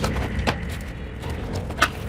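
Cardboard keyboard box being handled and opened: low rustling and scraping with a few sharp knocks and clicks, the loudest near the end.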